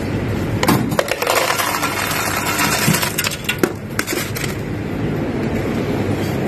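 Ice cubes clattering out of a self-serve ice dispenser into a paper cup: a dense rattling rush of cubes that starts about a second in and stops about four and a half seconds in.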